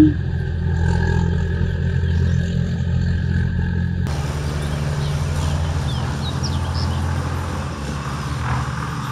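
Steady low mechanical hum, like an engine or generator running, with the sound shifting abruptly about four seconds in. A few faint high chirps, like birds, come in the middle.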